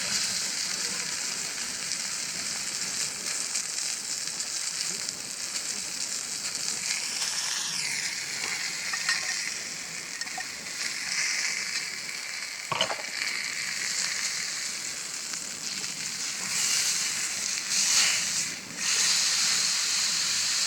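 Food sizzling steadily in a hot pan over a fire, a continuous frying hiss, with one sharp click about 13 seconds in.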